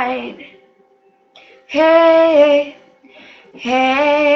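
A female voice singing a cappella, with no accompaniment. She holds long notes on the song's drawn-out "tonight" and "hey", with short pauses between them.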